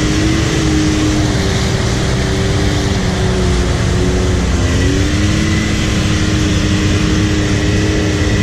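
Can-Am Maverick X3 Turbo side-by-side's turbocharged three-cylinder engine running under changing throttle while driving through mud, heard from in the cab. Its pitch wavers, dips about four seconds in and climbs again, over steady drivetrain and tyre rumble with a faint high whine.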